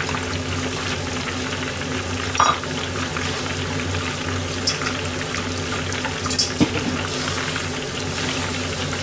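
Steady sizzle and crackle of tempura deep-frying in a pan of oil, over a low steady hum. A few light clicks, at about two and a half seconds in and again around six and a half seconds.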